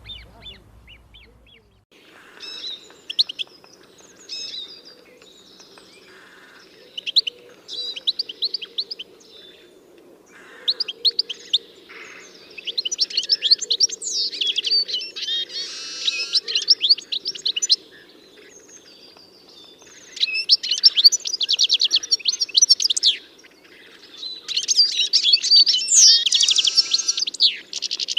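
A songbird singing in repeated phrases of rapid trilled notes, each phrase lasting a few seconds with short pauses between, growing louder and longer in the second half, over a faint steady low hum.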